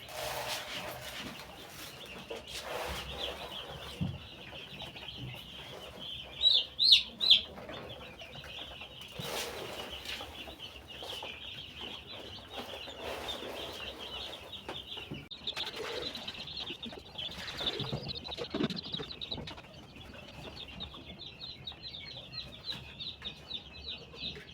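A crowd of day-old chicks peeping continuously, a dense chorus of short high peeps, with a few louder peeps about seven seconds in and occasional rustling among them.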